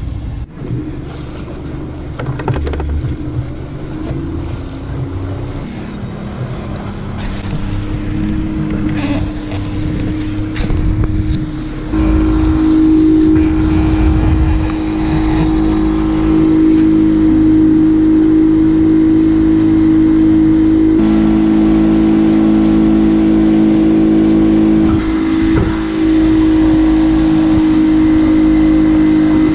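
Yamaha 50 outboard motor pushing a small boat: its pitch and loudness climb over the first dozen seconds as the boat picks up speed, then it runs steadily at cruising speed, with a heavy low rumble of wind and water underneath.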